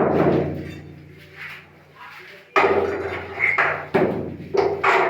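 Heavy hammer blows on concrete, a handful of loud irregularly spaced strikes, as a septic tank is broken open.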